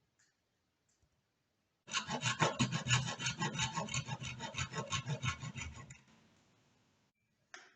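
A hand tool worked across wood in quick back-and-forth strokes for about four seconds, starting about two seconds in, then one short sharp click near the end.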